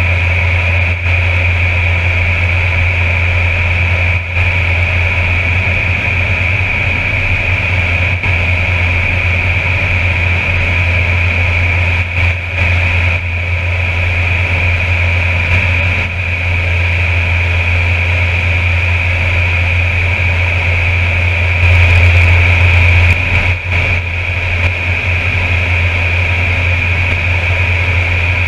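Air Tractor 402B's turboprop engine and propeller in steady cruise, heard from inside the cockpit: a constant low drone with a steady high whine above it, a little louder for a moment about three-quarters of the way through.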